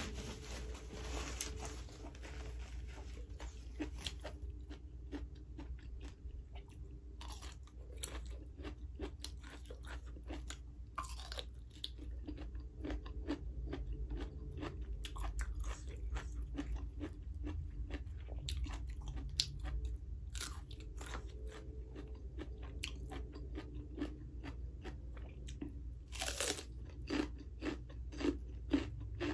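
Close-up chewing and crunching of crisp vegetables, with many small crunches. There is a loud crunch about 26 seconds in and sharper bites near the end.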